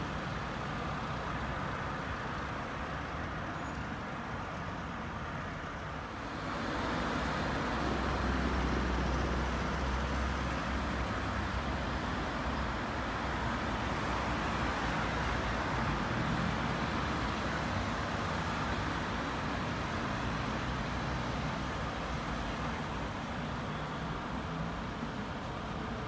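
City street traffic: a steady wash of passing cars that swells about six seconds in, with a deep rumble for a few seconds, and then stays louder.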